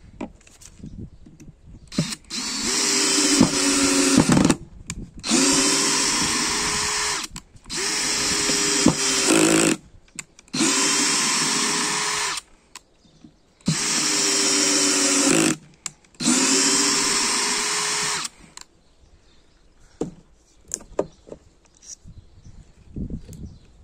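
Cordless DeWalt power driver running in six bursts of about two seconds each, driving screws into hard wood. The motor pitch rises as each burst starts.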